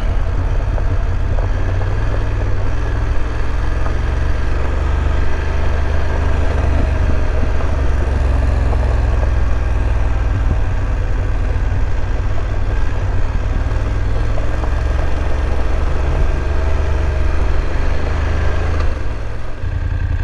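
BMW F850 GS parallel-twin engine running steadily as the motorcycle rides along, with a heavy low rumble; the sound dips briefly near the end.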